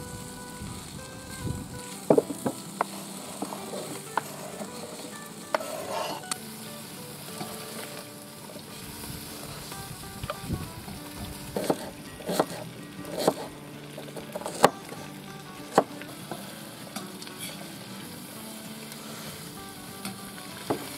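Diced pork fat sizzling as it renders in a kazan, stirred with a metal ladle, with occasional sharp knocks and scrapes.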